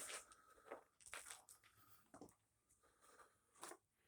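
Near silence in a small indoor space, broken by a few faint scuffs and crunches like footsteps on a littered floor.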